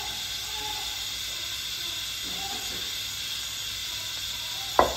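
Steady hiss with one sharp knock near the end.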